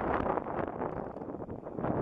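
Wind buffeting the microphone: a rough, gusty rush that eases off briefly after about a second and then picks up again.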